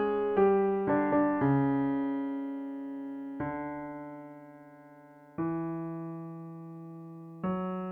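Solo piano playing a slow passage: a few quick notes, then long notes struck about every two seconds, each left to ring and fade away.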